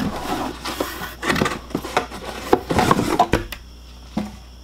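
Cardboard box and the packaging inside it being handled and rummaged through: a run of rustles, scrapes and light knocks that dies away about three and a half seconds in.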